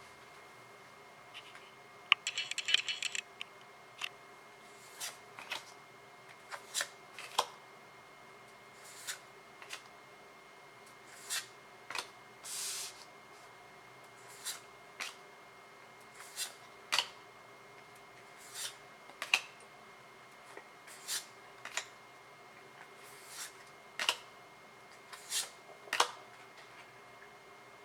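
A brief rapid crackle about two seconds in, like a foil booster pack being torn open, then trading cards handled one at a time, with a short swish or tap every second or so.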